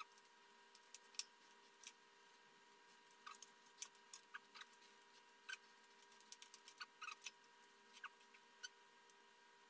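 Faint, irregular clicks and small cracks of blue crab shell being broken and picked apart while eating, with occasional louder snaps.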